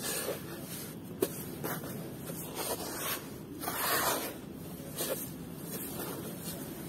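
Hands raking and crumbling loose dry red dirt in a basin: a gritty rustling with a run of soft swishes. The loudest sweep comes about four seconds in, and there is a small sharp click just after the first second.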